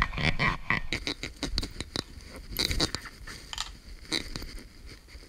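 Irregular clicks, knocks and crunchy scrapes from hands working around a stopped metal lathe, with no motor running. The loudest knocks come in the first second and again about halfway through.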